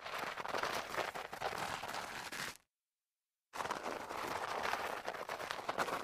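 Sneaker sole sliding over a floor strewn with light grit, a gritty scrape with fine crackles. Two long slides, the first stopping about two and a half seconds in, the second starting about a second later.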